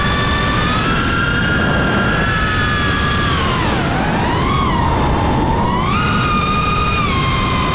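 Model jet engine whining, heard from a camera on board, over a steady rush of wind. The whine drops in pitch about four seconds in, wavers, and climbs back up about two seconds later.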